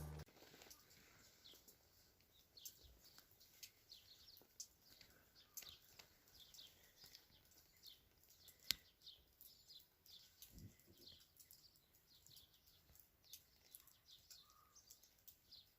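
Faint, scattered chirping of small birds, short high chirps coming irregularly, with one sharp click about halfway through.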